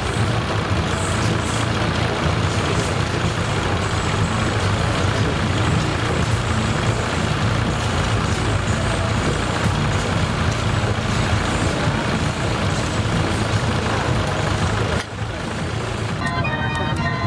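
The machinery driving a screw-cone log splitter on a saw bench runs steadily with a low hum. About fifteen seconds in it cuts off and a fairground organ starts playing.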